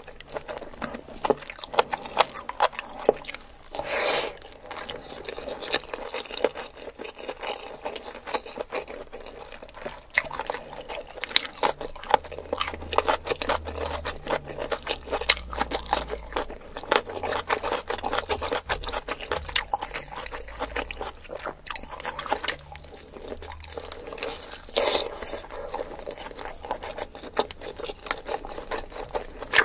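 Close-miked eating sounds: wet chewing and mouth smacks as rice and chicken curry are eaten by hand, with crunches from raw cucumber slices and squishing as fingers work the rice into the gravy.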